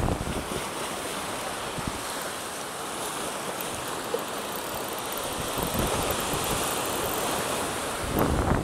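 Wind buffeting the microphone over the steady wash of the sea, with a few stronger gusts near the end.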